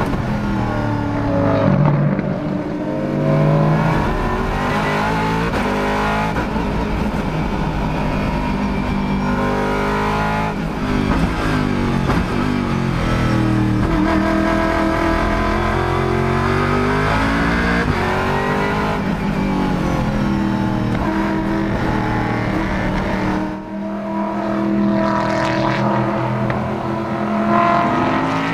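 Aston Martin V8 Vantage GTE race car's V8 engine under hard acceleration, its note climbing through the revs and falling back at each gear change. There is a brief lift off the throttle about three quarters of the way through before it pulls up through the revs again.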